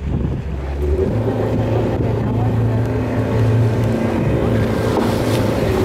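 Small boat's engine running steadily, its hum getting louder about a second in, over the rumble of wind and water.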